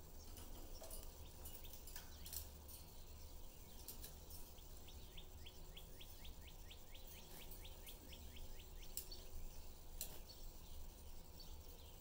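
Budgerigar giving a faint run of quick, repeated high chirps, about four a second for roughly five seconds in the middle, with a few sharp clicks and a steady low hum underneath.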